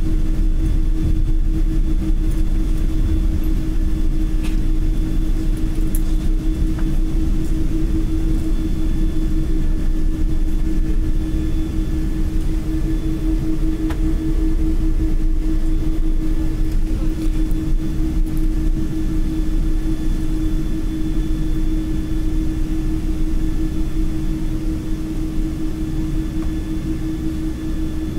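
Steady jet airliner cabin noise while taxiing: a constant engine hum over a low rumble, easing slightly near the end.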